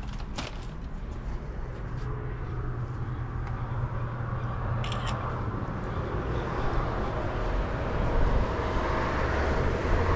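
Steady motor-vehicle noise with a low hum, growing slowly louder toward the end, and two short clicks about five seconds in.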